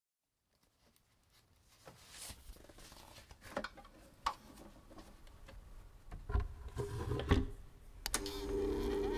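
Clicks, knocks and crackle from a record player's tonearm and stylus being lowered onto a record, building up in loudness. About eight seconds in, a sharp click is followed by a steady buzzing hum.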